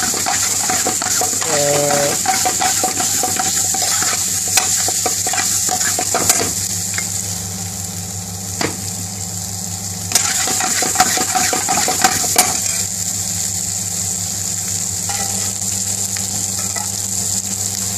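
Pre-cooked lamb pieces with onions and peppers sizzling in a frying pan on a gas burner, stirred with a metal spoon that scrapes and taps against the pan several times, over a steady low hum.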